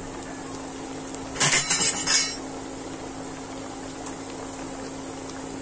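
Urad dal vadas deep-frying in hot oil in a metal kadai, a steady sizzle. About a second and a half in, a quick run of metal clinks against the pan lasting under a second.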